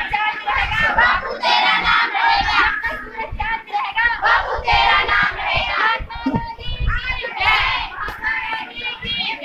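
A group of children's voices raised together in unison, in high phrases with short breaks between them.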